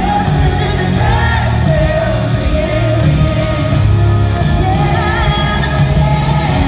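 A live country-pop band playing with a woman singing the lead vocal over a heavy bass, in the echo of a large arena.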